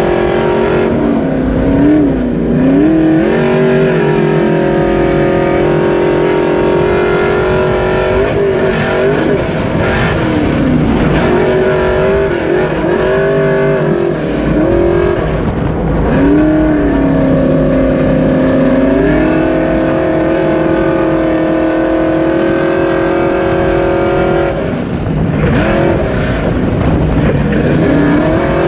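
Dirt-track super stock race truck's engine heard from inside the cab, running hard under racing throttle. Its note sags and climbs back again and again as the driver lifts and gets back on the gas, holding steady through longer stretches, with a short drop about 25 seconds in.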